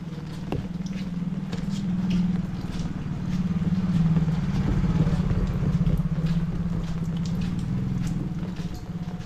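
A vehicle engine runs close by, a low pulsing drone that grows louder through the middle and eases off near the end. Heavy rain ticks and patters on an umbrella overhead.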